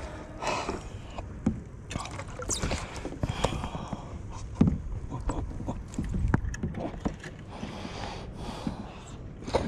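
Irregular knocks and thumps on a kayak's deck and hull as a large dorado (mahi-mahi) is held down under foot, with water moving against the hull.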